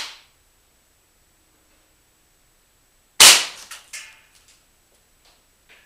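A .177 pellet air rifle fires one shot at a CRT monitor about three seconds in: a single sharp, loud crack that dies away over about a second, followed by a few lighter clicks. There is a shorter, quieter click at the very start.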